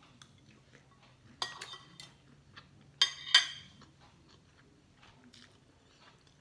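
Metal spoon and fork clinking and scraping on a ceramic plate: sharp, ringing clinks about a second and a half in and twice around three seconds in, with lighter taps between.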